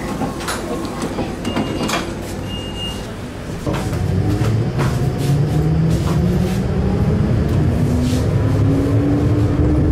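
Electric light-rail car: clicks and a short high beep as the doors close, then the car pulls away. A low rumble builds, and the traction motor whine rises steadily in pitch as it gathers speed.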